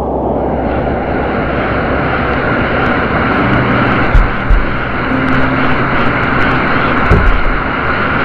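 A waterfall: loud, steady rush of falling water.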